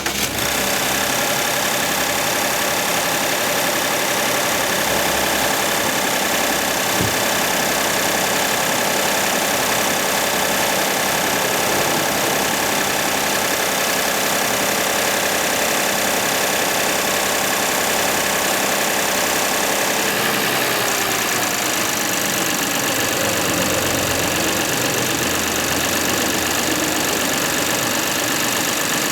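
Toyota 4GR-FSE 2.5-litre V6 direct-injection engine running steadily at idle. The note changes slightly about twenty seconds in.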